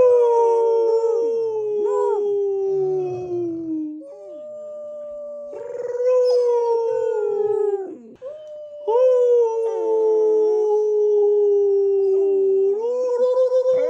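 Several voices howling together, long drawn-out howls that fall slowly in pitch and overlap: people howling alongside a Rottweiler and a 14-week-old Rottweiler puppy joining in with small howls. The chorus breaks off briefly about 4 and 8 seconds in and starts again.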